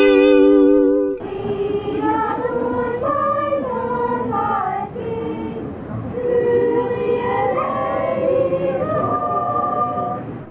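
A children's choir singing a song. About a second in, a held musical chord cuts off and the singing begins.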